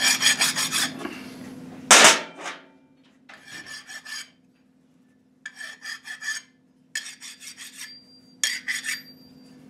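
A hand flat file rasping along the edges of a factory GM steel connecting rod and its cap, knocking off burrs and breaking the sharp edges. The filing comes in about five short runs of quick strokes with pauses between, plus one sharper, louder hit about two seconds in.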